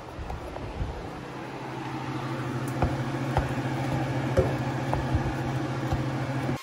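Ground beef sizzling in a stainless steel frying pan, the sizzle building after a second or so, while a spatula breaks it up with scattered clicks and scrapes against the pan. A steady low hum runs underneath.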